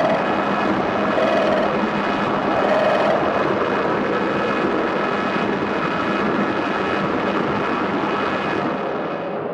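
Industrial noise track: a dense, churning wall of noise with steady droning tones running through it. Near the end the high end is filtered away and the sound grows duller.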